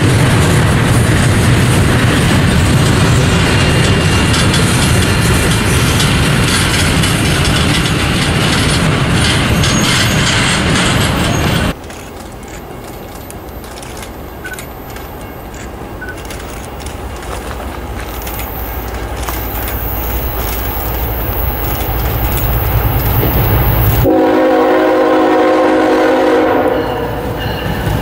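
Double-stack intermodal freight cars rolling past close by, a loud steady rumble and rattle of wheels on rail. After a sudden cut about twelve seconds in, a second freight train approaches behind its CSX diesel locomotives: a quieter rumble that grows steadily louder, with a horn sounding for about three seconds near the end.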